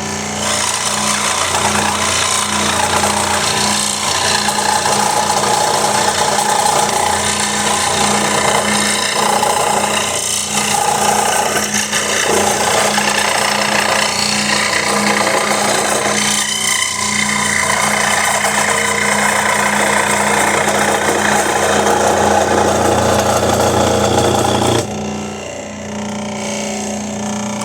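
Scroll saw cutting wood: the blade's continuous rasping cut over the steady hum of the saw's motor. Near the end the cutting noise drops away, leaving the motor humming.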